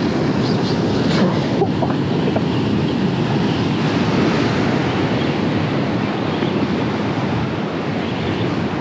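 Surf washing onto the shore, with wind buffeting the microphone; a steady noise with no clear rhythm.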